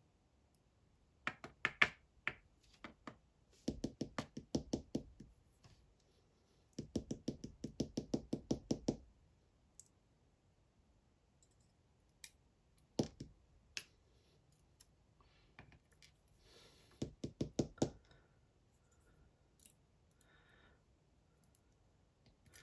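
Small metal lock parts knocked against a hard surface in several short bursts of rapid taps, about five or six a second, with a few single knocks between them. The knocking comes while a dimple lock is being taken apart.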